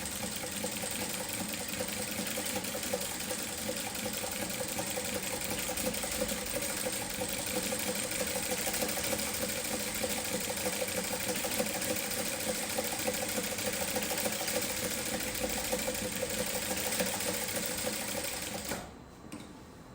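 Industrial straight-stitch sewing machine fitted with a zigzag attachment, running steadily while sewing a zigzag stitch; it stops suddenly near the end.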